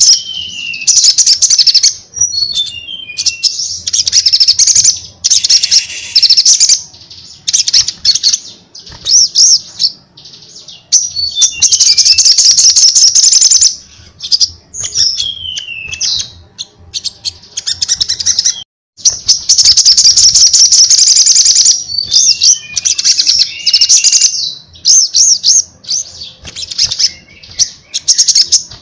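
Male olive-backed sunbird (sogon) in full, loud song: bursts of rapid high trills and chatter, with short falling whistled notes between phrases and brief pauses.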